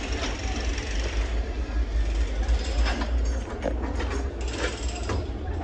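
Wheel excavator's diesel engine running steadily with a deep rumble while it handles concrete slabs, with a few sharp knocks and scrapes between about three and five seconds in.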